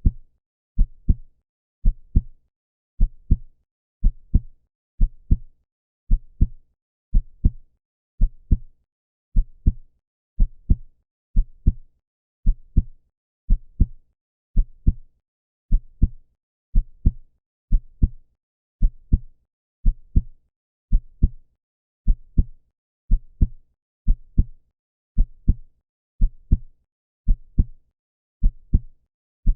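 Heartbeat: a steady double thump, lub-dub, about once a second. The thumps are deep, with silence between beats.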